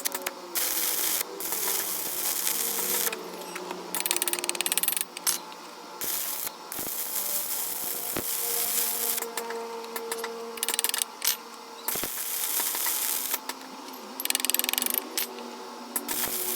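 Stick (arc) welding: the arc crackling and sputtering in stretches of a second or two that start and stop abruptly, as the rod is struck and broken off several times.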